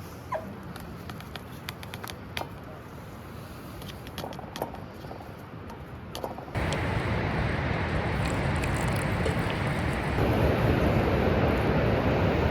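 Scattered faint clicks and crackles over a low outdoor background. About six and a half seconds in, the sound cuts abruptly to a loud, steady rushing noise, which steps louder again near ten seconds.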